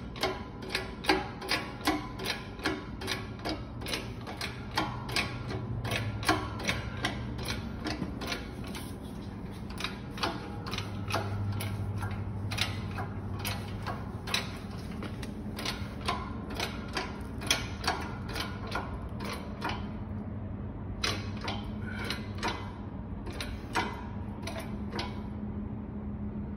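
Background music with a steady ticking beat, about two ticks a second, over low sustained notes that change every few seconds.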